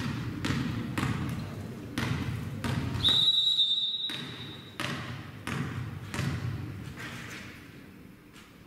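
A volleyball bounced repeatedly on a gym floor, roughly once or twice a second, each bounce echoing in the hall. A little after three seconds in, a referee's whistle blows once for about a second, the signal to serve.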